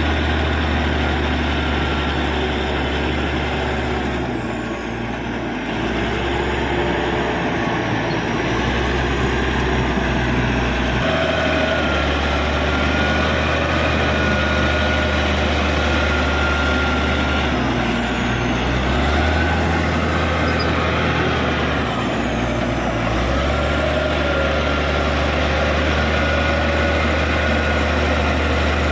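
Caterpillar D6G bulldozer's diesel engine running under load while pushing soil. Its note shifts up and down every few seconds, with a faint whining tone rising and falling over it.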